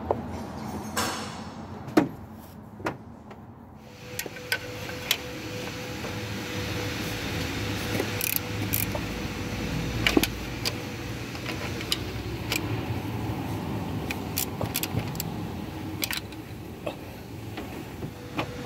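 Hand tools clinking and tapping against the metal timing components of a Nissan YD25 diesel engine: scattered sharp metallic clicks, heard over a steady low hum that gains a thin steady tone about four seconds in.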